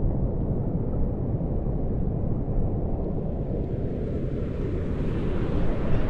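Wind buffeting a small camera's microphone: a steady low rumble that grows brighter in the last second or two.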